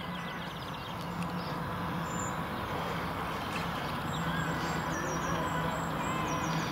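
Steady low hum of a small radio-controlled boat's electric drive, growing slowly louder as the boat passes close.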